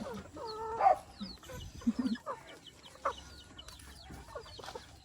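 Free-range chickens clucking and calling, with one louder drawn-out call about a second in and many short, high cheeping notes throughout.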